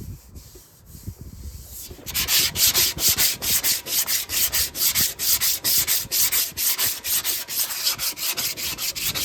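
Hand block sanding of body filler on a metal motorcycle gas tank with 80-grit sandpaper. Quiet for about the first two seconds, then fast, even back-and-forth strokes, about four a second.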